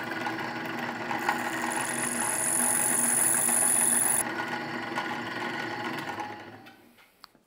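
Small electric power tool running while a hole is enlarged into an oblong slot, with a high-pitched cutting whine over the motor from about a second in to about four seconds in. The motor winds down near the end.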